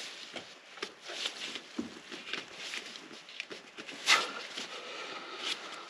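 Gloved hands rubbing and scraping against a new spin-on oil filter as it is turned onto the engine by hand, in a run of small irregular scrapes and knocks. There is a louder scrape about four seconds in.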